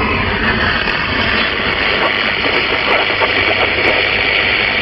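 Mobile CB radio on 27.625 MHz upper sideband hissing with steady band static while it listens for a reply to a long-distance call.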